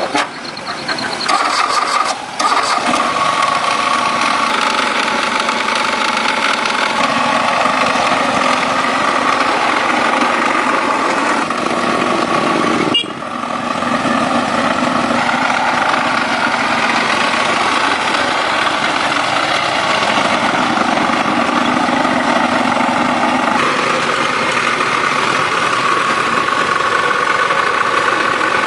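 The restored old Dodge's engine running steadily, with short dips about two seconds in and about halfway through.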